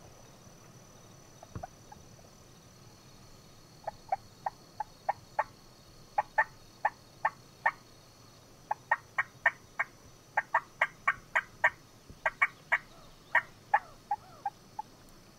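Turkey yelping: a long series of short, sharp notes in runs of three to five, beginning about four seconds in.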